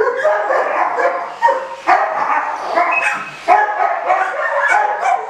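Several dogs barking, yipping and whining, short calls in quick succession that sometimes overlap.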